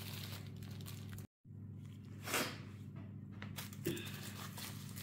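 Faint handling sounds over a steady low hum, with one brief crinkle of aluminium foil about two seconds in as a foil-wrapped kürtőskalács baking form is handled, and a small tick a little later. The sound drops out completely for a split second about a second in.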